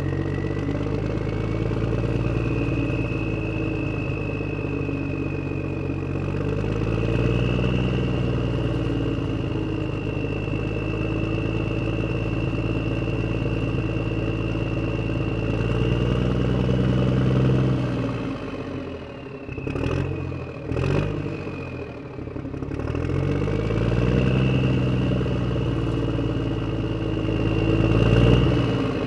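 Tractor engine sound effect: a diesel-type engine running, its revs rising and falling several times and dropping away briefly about two-thirds of the way through before picking up again. A thin high whine runs over it.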